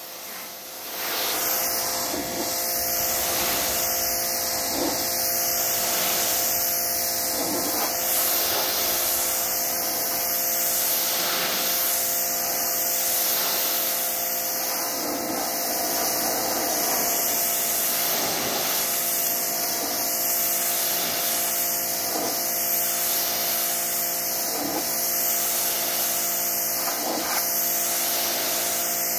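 Pressure washer running: the steady hiss of its water jet spraying a boat hull over a steady motor hum, starting about a second in.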